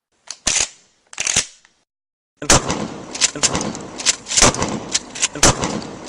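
Smith & Wesson M&P22 .22 LR semi-automatic pistol firing: two single shots, then after a short pause a quick string of shots, roughly two a second.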